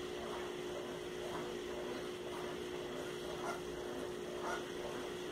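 A steady mid-pitched hum, with faint soft rustles about once a second as cotton yarn is worked with a crochet hook.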